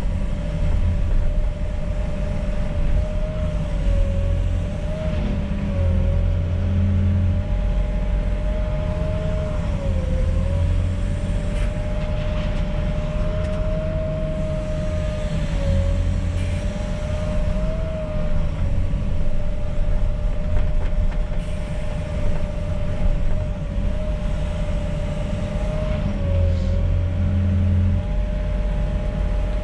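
Volvo EWR150E wheeled excavator's diesel engine and hydraulics working through a digging-and-loading cycle: a steady whine over a low rumble, the whine sagging briefly in pitch and the rumble swelling every few seconds as the machine takes load.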